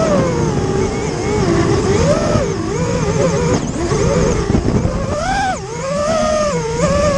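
FPV drone's electric motors and propellers whining, the pitch rising and falling constantly with the throttle, over a low rushing noise.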